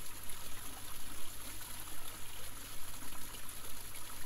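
Running water flowing steadily, an even, unbroken rush and trickle.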